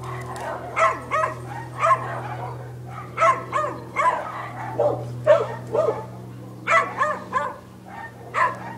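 Dogs barking repeatedly in short, irregular yips and barks, with a steady low hum underneath.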